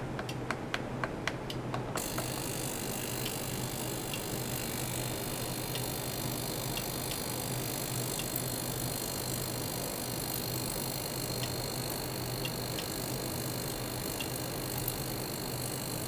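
A small ultrasonic cleaner runs with a steady hiss and a faint high whine, the audible noise of ultrasonic cavitation in its water-filled tank. About six quick clicks come just before the hiss sets in, roughly two seconds in, and a low hum runs underneath throughout.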